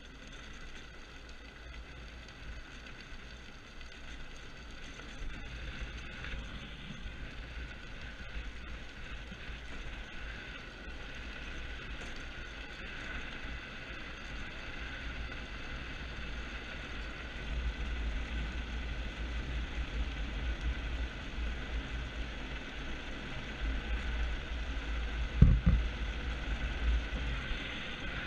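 Motorless soapbox kart rolling downhill on a concrete road: wind buffeting the on-board microphone and the small tyres' rolling noise, getting louder as it gathers speed. A sharp knock near the end, the loudest moment.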